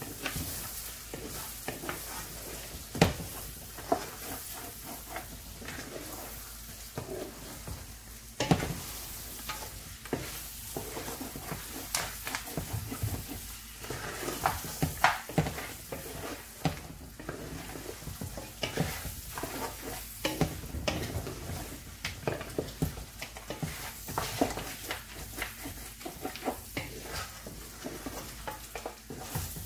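Meat and onions frying and sizzling in oil in a large metal pot while a wooden spoon stirs them, scraping and knocking against the pot many times.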